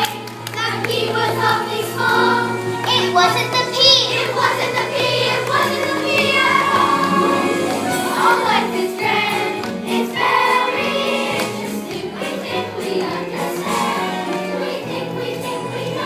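Group of voices singing together with instrumental accompaniment.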